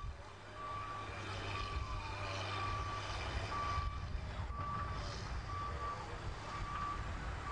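Heavy earthmoving machine's backup alarm beeping at a single pitch about once a second, over the low rumble of its engine working.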